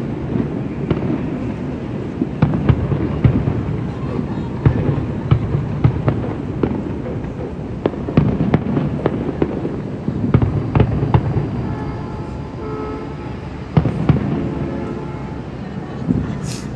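Fireworks going off in a rapid, irregular run of sharp cracks and bangs over a steady low rumble.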